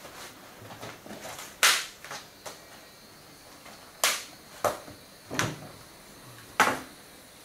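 Sheet music, folders and cases being handled on a wooden table: light rustling of paper with five sharp slaps and knocks as papers and a case are set down and pushed across the table.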